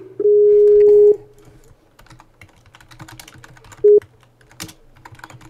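Skype call tones from the computer: one long steady beep near the start, then a short beep at the same pitch about four seconds in as the call comes back busy. Quick computer-keyboard typing clicks fall between and after the beeps.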